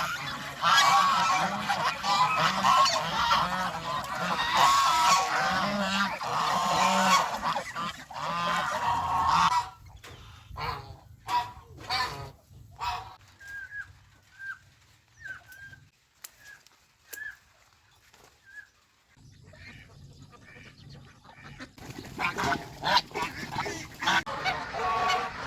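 A flock of domestic geese honking, many calls overlapping. About ten seconds in the calling thins out to scattered single honks and a few faint high chirps, then the flock breaks into dense honking again near the end.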